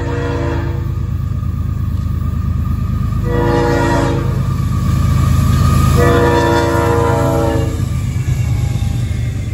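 CSX GE ES44AH diesel locomotive sounding its multi-note horn. The end of a long blast comes first, then a short blast about three seconds in, then a final long blast of nearly two seconds, the close of a grade-crossing signal. Underneath is the steady rumble of the diesel engines and the train, growing louder as the locomotives pass close by.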